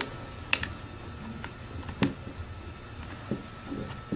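A few light clicks and knocks, about one a second, from a drone battery and its charging cable being connected and handled by hand.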